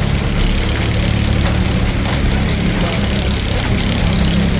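Steam-engine-driven Frick sawmill running: a steady mechanical drone with a constant low hum and a hiss spread across the high end.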